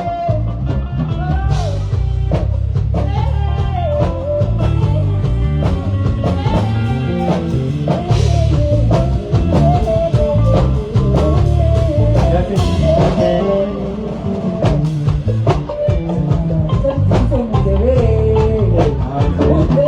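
Live band playing amplified music: drum kit and heavy bass under guitar and a wavering sung melody, continuous and loud.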